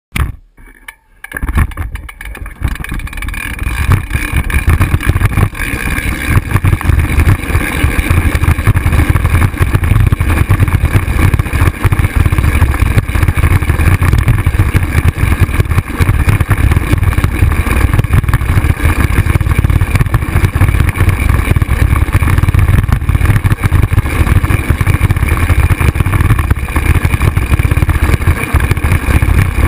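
Loud, steady, fluttering rumble of wind buffeting and handling noise on a handheld action camera's microphone as it is carried along at a walk or jog.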